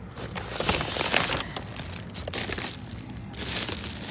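Paper shopping and gift bags crinkling and rustling as they are handled and shifted about, loudest about a second in and again near the end.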